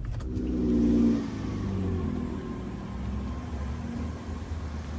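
A car engine accelerating briefly, loudest about a second in, then dropping in pitch as it eases off, over a steady low road rumble while the car drives.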